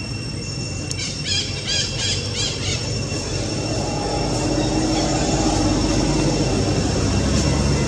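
A low engine drone building and growing louder from about halfway, under a steady high-pitched whine. Between one and three seconds in comes a quick run of about five chirping calls.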